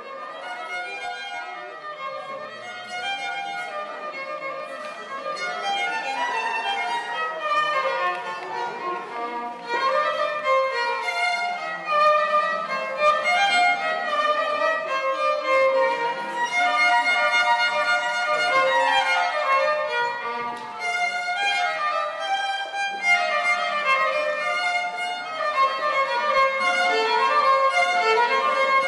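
Background instrumental music led by a violin, playing a flowing melody with quick rising and falling runs and gradually getting louder over the first several seconds.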